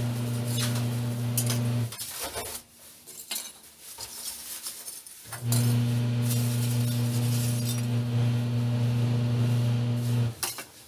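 Lumps of wood charcoal clinking and knocking as they are set into the grate of a clay stove. A steady low hum, the loudest sound, stops about two seconds in and comes back about five and a half seconds in.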